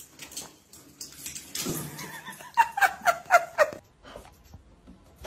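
A pet animal giving a quick run of about six short calls, each dropping in pitch, a little over halfway through.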